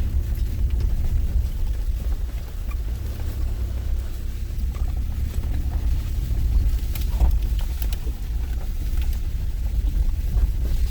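Low, steady rumble of a vehicle driving slowly over a rough off-road track, with a few faint knocks and rattles.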